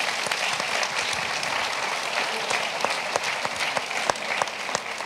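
Audience applauding, many hands clapping at once, fading near the end.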